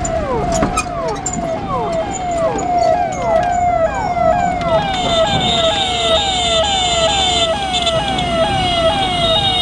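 Ambulance siren in a fast yelp, its pitch sweeping up and down about twice a second over road noise. A steady high-pitched tone joins about five seconds in.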